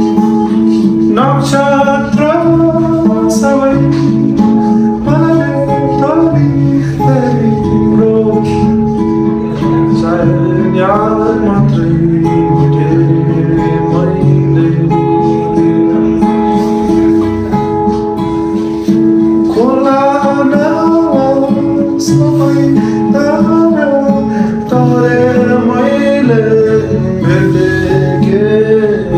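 A man singing while playing an acoustic guitar. The guitar's held notes ring under the sung melody, which comes in about a second and a half in.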